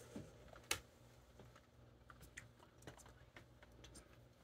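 Near silence with scattered faint clicks, one sharper click about 0.7 seconds in.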